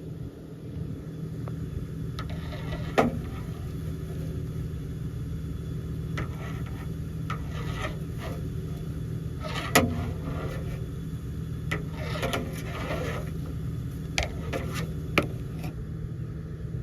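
Scraping and rubbing at an outside dryer vent, in irregular spells, with several sharp knocks, two of them loud, over a steady low hum.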